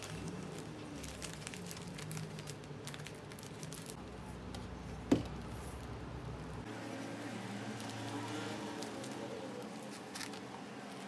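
Florist wrapping paper being folded and handled, crinkling and rustling, with one short sharp knock about five seconds in.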